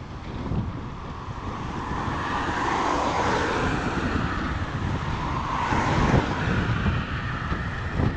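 Wind buffeting the microphone of a moving road bike, with motor traffic passing that swells and fades about three and six seconds in.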